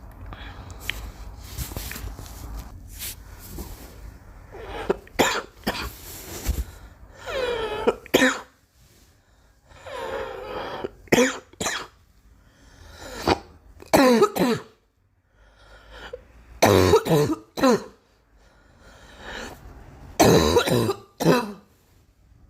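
A girl coughing repeatedly, starting about five seconds in, in short bouts of two or three coughs with pauses between. Some coughs are voiced.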